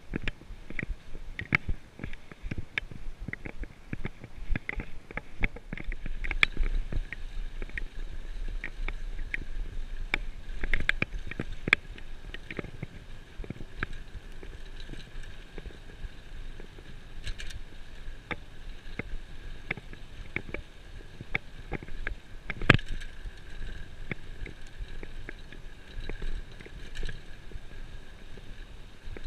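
Bicycle riding over a bumpy sandy dirt track: frequent rattling clicks and knocks from the bike over the ruts, with tyre noise and a low rumble for several seconds near the start, and one sharp knock louder than the rest about two-thirds of the way through.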